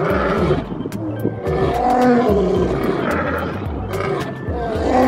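Male lions roaring repeatedly in long, rising-and-falling roars, over background music with a steady beat.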